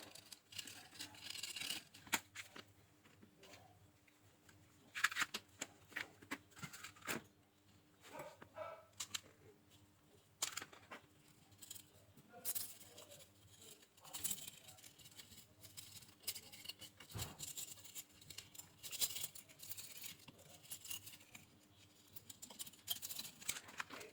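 Quiet, scattered clicks, scrapes and rustling from handling tools and small parts.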